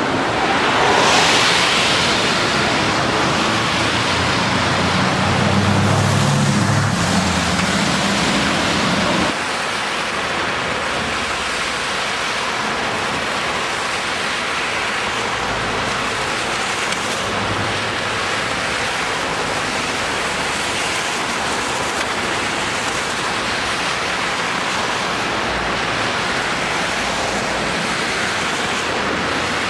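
Road traffic on wet asphalt: a steady hiss of tyres on the wet road, with a low engine hum from passing cars in the first several seconds. About nine seconds in the sound changes abruptly to a steadier, slightly quieter wash of traffic hiss.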